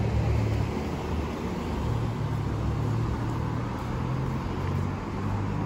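City street traffic: car engines and tyres on the road alongside, a steady low hum over a general street noise.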